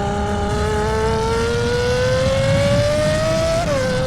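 Ferrari F12 Berlinetta's 6.3-litre naturally aspirated V12 accelerating hard, its note climbing steadily in pitch for about three and a half seconds. Near the end the pitch drops sharply with an upshift of the dual-clutch gearbox.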